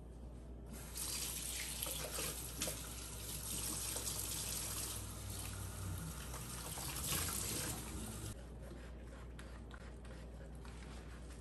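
Kitchen faucet running into a stainless steel sink, the stream splashing over a sponge and hands. It is turned on about a second in and shut off after about eight seconds, leaving faint clinks of dishes being handled.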